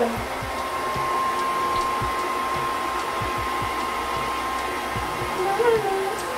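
Hand-held pet grooming blow dryer running steadily, an even rush of air with a steady high motor whine, while a standard poodle's coat is dried and brushed.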